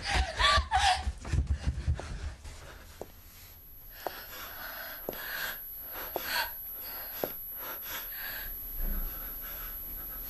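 A person gasping and panting for about the first two seconds, then a steady hiss that slowly grows louder, with a few faint clicks in it.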